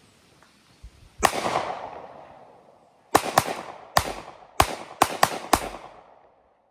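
Hi-Point 9mm semi-automatic pistol firing eight shots: one about a second in, then seven in an uneven quick string, each with an echoing tail. The pistol cycles each round despite having been run over.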